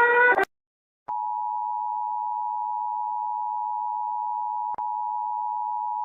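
A rising alarm tone cuts off in the first half second; after a short silence, a steady single-pitched emergency alert attention tone sounds, interrupted by a brief click about three-quarters of the way through.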